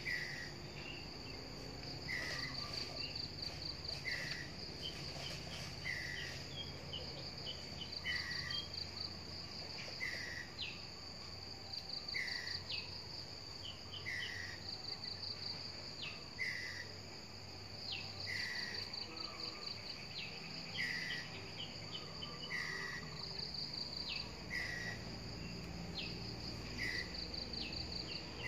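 Insects chirping in pulsed high trills that come in short bouts. A short call repeats about every two seconds throughout.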